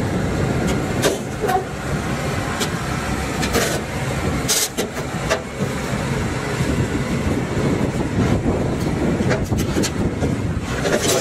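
A heavy tracked tractor's engine running hard under load as it climbs a trailer ramp, with the steel tracks clanking. Several sharp knocks stand out, about a third of the way in, near the middle and at the very end.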